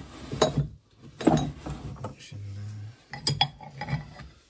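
A small wooden drawer being pulled open with its contents rattling, and glass jars clinking as they are handled, in several separate knocks and clinks.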